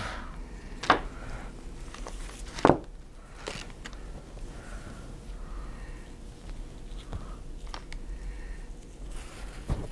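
Nylon mesh fabric rustling softly as it is handled and spread out, with a few sharp clicks scattered through, the loudest a little under a third of the way in.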